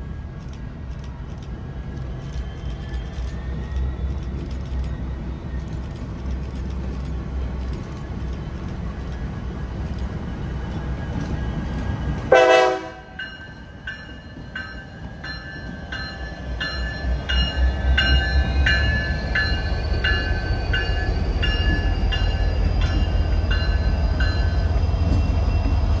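A train rumbling, with a short, sharp tonal burst about halfway through where the sound changes abruptly. After it, a ringing pulses about twice a second over the train's rumble, which grows louder toward the end.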